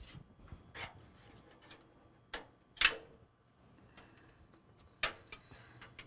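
Scattered clicks and knocks from hands handling cables and computer hardware. The sharpest come about two and a half and three seconds in and again about five seconds in, over a faint low hum.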